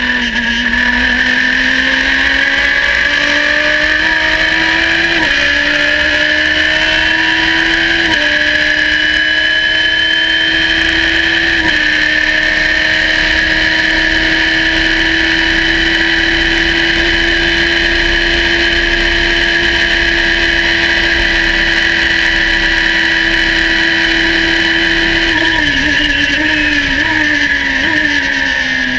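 Radical race car engine heard from the cockpit, accelerating hard through the gears. Three upshifts in the first twelve seconds each drop the pitch, then comes a long pull at high revs in top gear. Near the end it brakes with a run of quick downshifts, the revs blipping and falling, while a steady high whine runs throughout.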